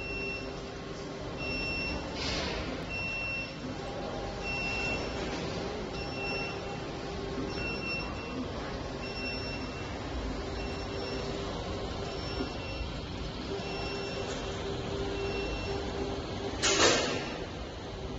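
SinoColor vertical wall printer running as it prints: a steady mechanical hum and hiss with a high tone that comes and goes about once every second and a bit, as the print carriage works across the wall. A short, loud noise sounds near the end.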